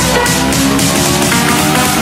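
Loud electronic background music with a steady beat.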